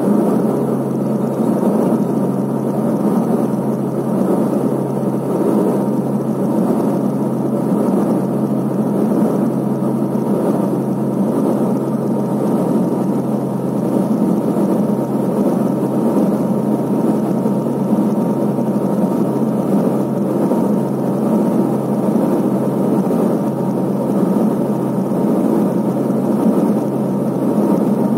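Cabin noise of a Let L-410 UVP-E20 twin turboprop in flight: the engines and propellers run at a steady drone, with a low propeller hum under a constant rush of engine and air noise and a faint steady whine above it.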